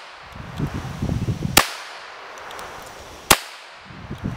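Two shots from a Raven MP-25 .25 ACP pocket pistol, a little under two seconds apart, each a short sharp crack.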